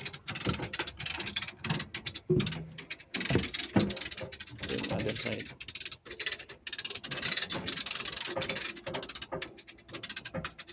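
Lever chain hoists (come-alongs) ratcheting in fast runs of clicks as they are worked, with the load chains rattling, hauling a heavy alternator into place.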